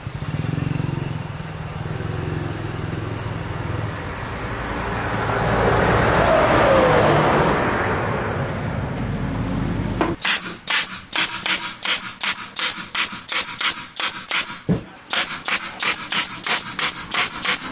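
Pneumatic nail gun firing repeatedly into MDF panels, sharp shots about three a second, starting about ten seconds in with a short pause near fifteen seconds. Before that, a steady low hum with a noisy whoosh that swells and fades away.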